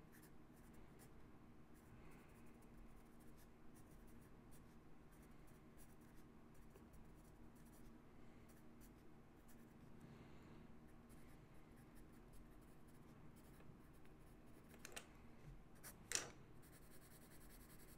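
Faint scratching of a Palomino Blackwing pencil's graphite writing on toothy bond paper, with two sharper strokes near the end.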